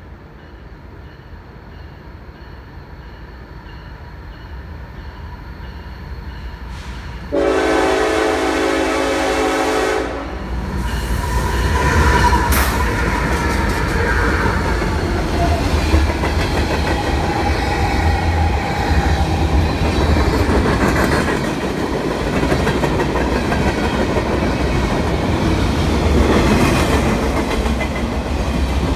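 A CSX mixed freight train approaches, its rumble growing steadily louder. About seven seconds in, the locomotive's horn gives one long blast of about three seconds. The diesel locomotives then pass close by, followed by a long train of freight cars rolling past.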